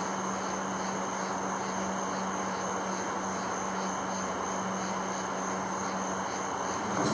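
Night insects chirping steadily: a high continuous trill with a pulsing chirp about three times a second, over a steady low hum. A brief soft knock comes right at the end.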